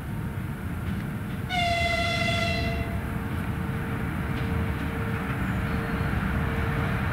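A 2ES6 'Sinara' electric locomotive with a freight train approaching, its rumble growing slowly louder, and one high-pitched horn blast of about a second and a half, sounding about a second and a half in.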